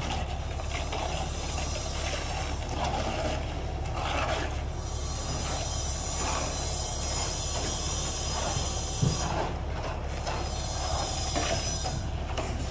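Steady machinery noise with intermittent squeaks and scrapes, and one sharp knock about nine seconds in.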